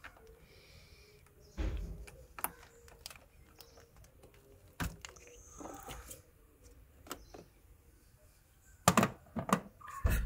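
Metal spanner clicking and clinking against a car battery's terminal clamp and nut as the terminal is loosened to disconnect the battery. Scattered light knocks, with a louder quick cluster near the end.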